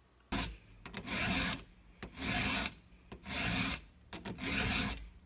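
Chainsaw file rasping across the cutter teeth of a chainsaw chain, sharpening them: five even push strokes, about one a second.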